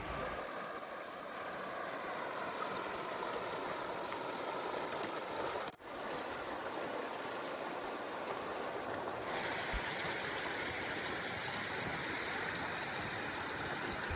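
Steady rushing of the Rogue River's water, an even rush of flowing current. It drops out briefly about six seconds in, and its hiss brightens from about nine seconds on.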